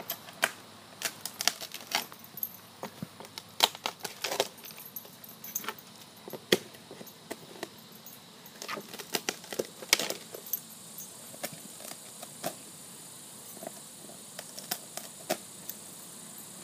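Labrador chewing and tearing at a palm frond, the frond giving irregular crackling snaps and rustles. The snapping is busy for the first ten seconds or so, then thins to occasional cracks.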